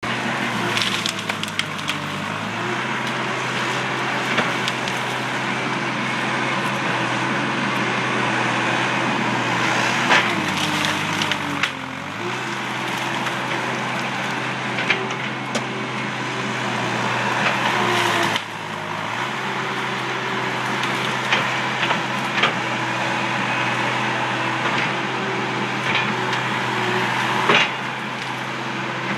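John Deere skid steer's diesel engine running hard; its pitch sags briefly three times as it lugs under load. Frequent sharp cracks and snaps of wood and brush breaking sound over it.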